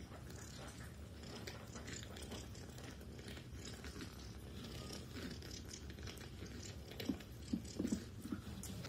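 A kitten licking and nuzzling a person's face up close: many small soft clicks and rustling. A few short, slightly louder sounds come about seven seconds in.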